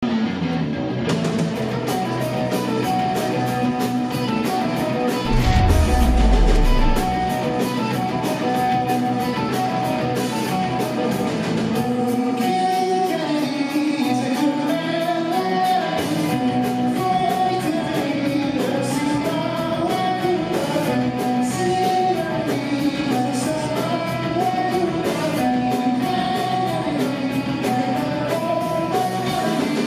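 Rock band playing live: electric guitars over a steadily beating drum kit. About five seconds in, a deep note slides down for a couple of seconds, the loudest moment.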